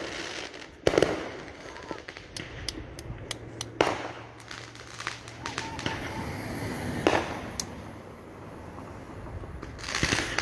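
Fireworks going off: loud bangs about one, four and seven seconds in, with a scatter of quick, sharp crackling pops between them.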